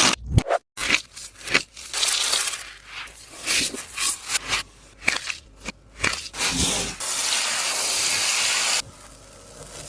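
Taba squishy being squeezed and handled, giving irregular crinkling and scraping, followed by a steady hiss for about two seconds near the end.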